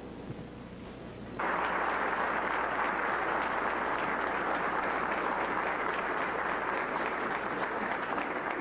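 Audience applauding, breaking out suddenly about a second and a half in and holding steady.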